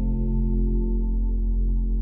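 Ambient worship music: a low chord held steady, with no voices.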